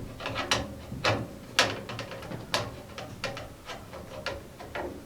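Irregular sharp clicks and light knocks of a CPU heatsink being handled and lined up over its mounting screws on a motherboard, about a dozen in all with a few louder ones.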